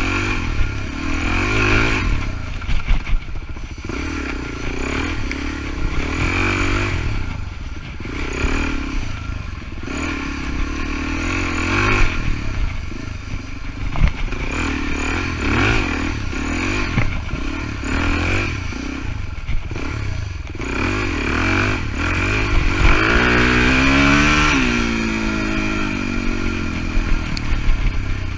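Suzuki DR-Z400E dirt bike's single-cylinder four-stroke engine, heard close up as it is ridden over rough trail, revving up and dropping back again and again with the throttle, with one longer high rev about three-quarters of the way through. Rattles and knocks from the bike over the bumpy ground come through over the engine.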